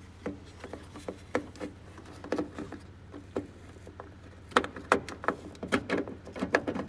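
Plastic clicks and knocks of a turn signal bulb socket being worked back into its light housing and twisted to lock, coming thicker and faster from about halfway through.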